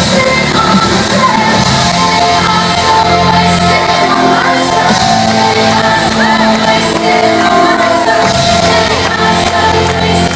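Live electronic dance music played loud through a club PA, with a woman singing into a microphone and shouts from the crowd, ringing in a large hall.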